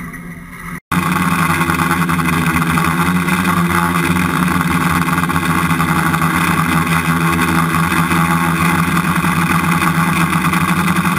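Multirotor camera drone's motors and propellers buzzing steadily while it hovers, a constant low hum under a higher whine, starting abruptly about a second in.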